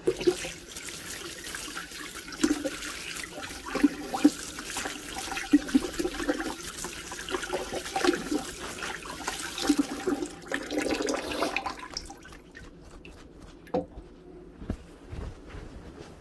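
Kitchen faucet running into a sink, the stream splashing over hands being rinsed. The water stops about twelve seconds in, followed by a sharp knock.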